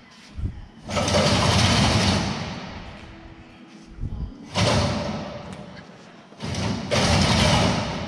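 Combine header's cutter knife being pushed through the cutterbar guards in three shoves, each a loud scrape that starts sharply and fades over a second or so.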